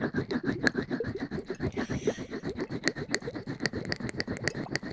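ASMR scratching right against the microphone: quick, even strokes, about ten a second.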